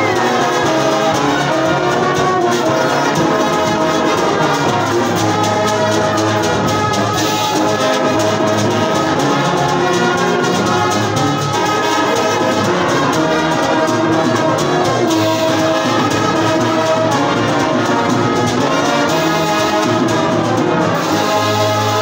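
Brass band playing: trumpets or cornets, trombones, euphoniums and tuba together in full harmony. Near the end the band holds a long chord with a strong deep bass note.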